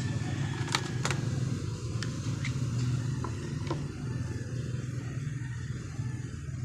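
A steady low engine drone, with a few light clicks of the pressure washer trigger gun's plastic parts being handled.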